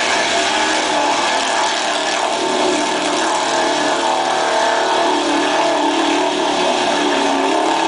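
1970 International pickup's engine running hard under load as the truck pushes through a deep mud bog, its pitch wavering a little.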